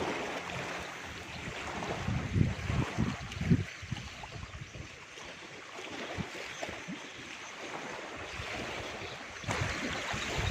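Wind gusting on the microphone over the steady wash of sea waves, with irregular low rumbling buffets.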